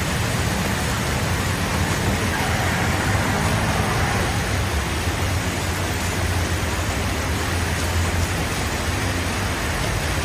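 Steady motor vehicle noise: engines running low and constant under an even hiss.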